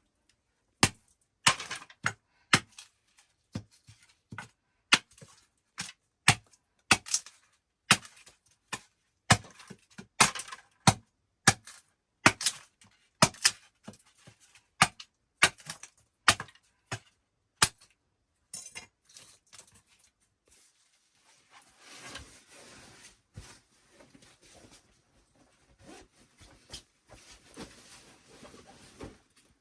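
A series of sharp knocks or chops, irregular at roughly one to two a second, then stopping about 18 seconds in and giving way to softer scraping and rustling.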